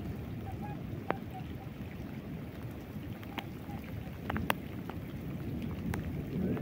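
Rain and wind: a steady low rumble of wind on the microphone, with scattered sharp ticks of raindrops.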